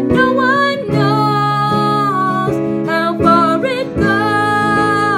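A woman singing long held notes, accompanied by a strummed acoustic guitar.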